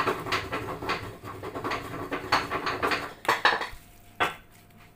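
A plastic slotted spoon stirring a wet ground beef and chopped vegetable filling, scraping and knocking against a glass mixing bowl in quick repeated strokes. The stirring stops about three and a half seconds in, with one more knock shortly after.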